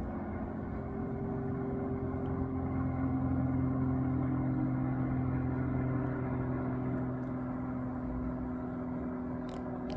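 Diamond DA40 single-engine propeller plane flying over, its engine and propeller drone a steady, even hum. The hum is loudest about four seconds in and then slowly fades.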